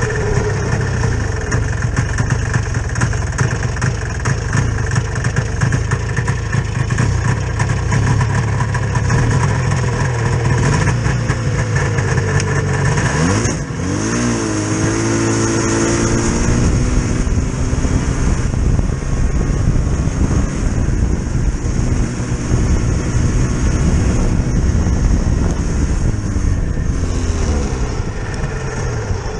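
Motor vehicle engine running steadily. About halfway through it briefly dips, then its pitch rises and settles again, as at a gear change or a change of throttle.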